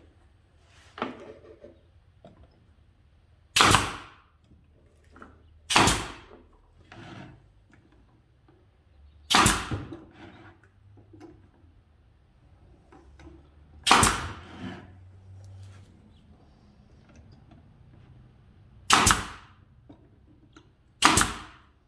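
Brad nailer shooting brads into cedar boards: six sharp shots, a few seconds apart, with light knocks of the wood being handled between them.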